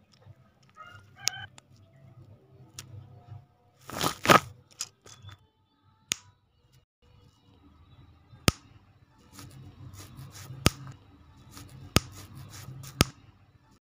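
Small plastic building bricks being pressed together by hand: a string of sharp, separate snaps and clicks, with a brief louder rustle of handled pieces about four seconds in.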